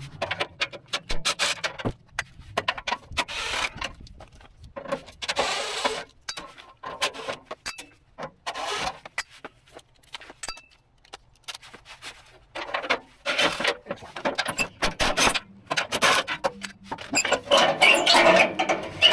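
A cordless drill with a socket runs in several short bursts as it backs out the skid plate's bolts, with clicks and metal clatter in between. Near the end come the scrape and rattle of the metal skid plate as it is handled and lowered.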